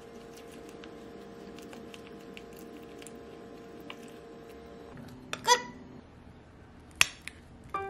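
A spoon stirring a thick oat mixture in a glass mug: faint soft clicks and scrapes over a steady hum. About five and a half seconds in comes a single ringing clink, then a sharp knock at about seven seconds.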